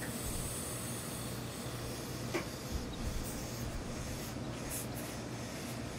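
Tailor's gravity-feed steam iron pressing suit trousers: a steady hiss over a low hum, with a few short sharper hisses between about four and five seconds in.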